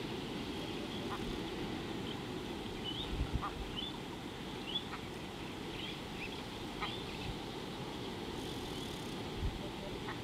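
Birds calling: short, high chirps, most of them rising, scattered irregularly, with a few sharp ticks among them, over a steady low background rush.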